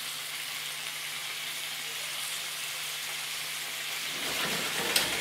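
Chicken pieces sizzling in oil in a frying pan while being turned over with tongs, with one sharp clack of the tongs against the pan near the end.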